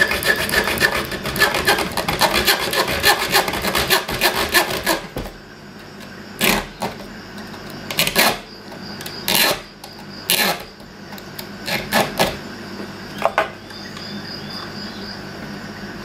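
Leatherman Super Tool 300 EOD saw blade cutting a thin metal tube held in a bench vise: fast, steady back-and-forth rasping strokes. About five seconds in the strokes thin out to a handful of separate strokes, and they stop a couple of seconds before the end.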